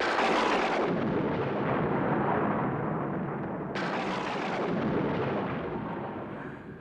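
Thunder: a loud crash that rolls and rumbles, a second sharp crack nearly four seconds in, then rumbling away and fading near the end.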